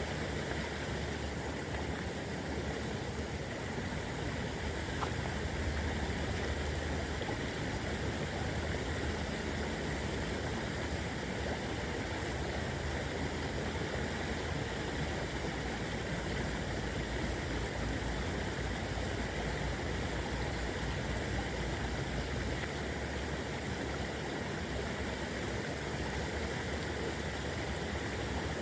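Small river babbling steadily.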